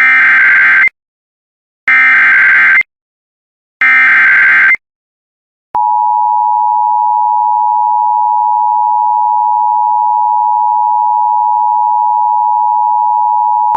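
Emergency Alert System header: three evenly spaced bursts of SAME digital data, each about a second long, then after a short gap a steady two-tone attention signal that starts about six seconds in and holds to the end. This tone sequence is the signal that a severe thunderstorm warning message follows.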